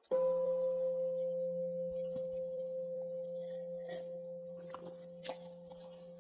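A Buddhist bowl bell struck once, ringing with a steady low tone that fades slowly. A few faint clicks come in the second half.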